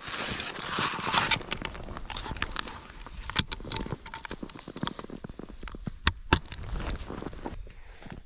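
Ski touring gear being handled in snow: climbing skins pulled off skis and dealt with, a rasping noise for the first second or so, then scattered clicks, crackles and rustling.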